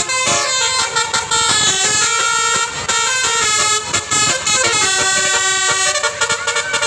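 Basuri multi-tone bus horn (Indonesian 'telolet' horn) playing a melody of short notes in quick succession, loud and changing pitch.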